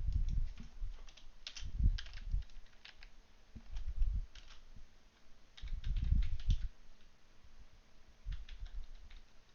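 Typing on a computer keyboard in about five short bursts of keystrokes, with dull low thumps from the desk under them.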